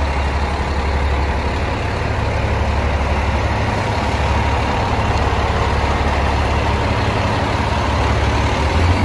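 A fire engine's diesel engine idling steadily close by, a deep, even drone that does not change.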